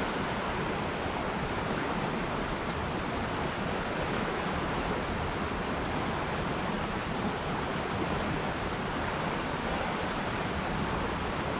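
River water rushing steadily over rocks: a constant, even roar of flowing water.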